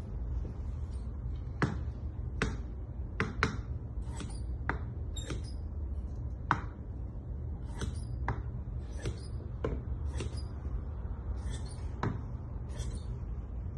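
Large tailor's shears cutting through suit cloth: a run of irregular sharp snips, roughly one or two a second, over a steady low hum.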